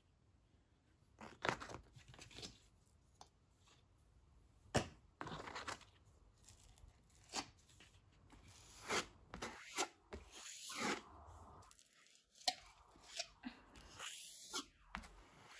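Filler knife scraping and spreading wet filler over a canvas in short, irregular strokes, with a spoon scraping filler from its plastic tub between strokes.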